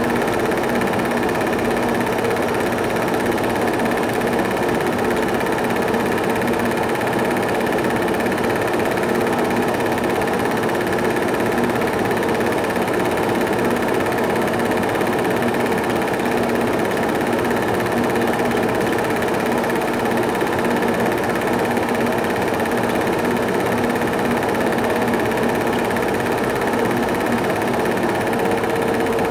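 A film projector running: a steady mechanical whirr with a constant hum, unchanged through the whole stretch.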